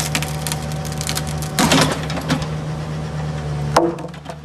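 Mini excavator engine running steadily with small clanks from the arm and bucket, a loud clatter about a second and a half in and a sharp knock near the end.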